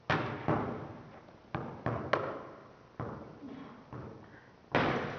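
A basketball thudding as it bounces on a hard floor: about eight sharp, irregularly spaced impacts, each echoing in a large hall.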